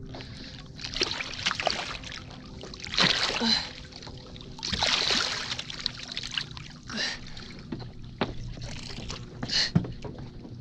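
Striped bass splashing and thrashing at the surface beside the boat hull in several loud bursts while being landed on a topwater plug. A sharp thump comes near the end as the fish is brought aboard.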